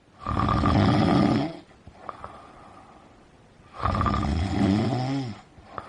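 A person snoring: two long snores a few seconds apart, the second trailing off with a falling tone.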